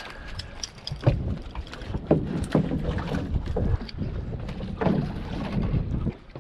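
Small waves lapping and knocking irregularly against a fishing boat's hull, with a low wind rumble on the microphone.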